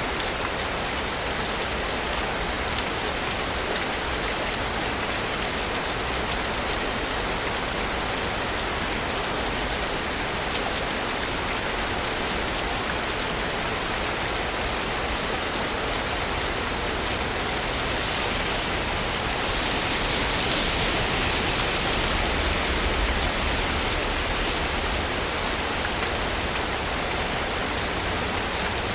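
Steady rain falling, an even hiss that swells a little louder for a few seconds about two-thirds of the way through.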